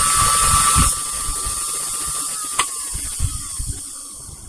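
Prestige 550-watt mixer grinder's motor running with no jar fitted, a steady high whine with hiss, freshly repaired with new carbon brushes and rotary switch. A click about two and a half seconds in, then the whine falls in pitch and fades as the motor runs down.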